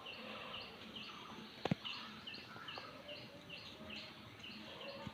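A bird calling in a quick series of short, high, down-slurred notes, a few each second, over faint outdoor background noise; a single sharp click sounds about a second and a half in.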